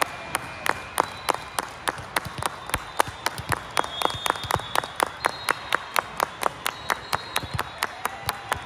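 Several people clapping their hands steadily, about four sharp claps a second and slightly uneven.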